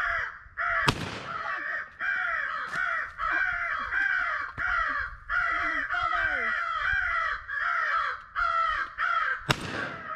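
Crows cawing over and over, about two caws a second, with two shotgun blasts cutting through, one about a second in and one near the end.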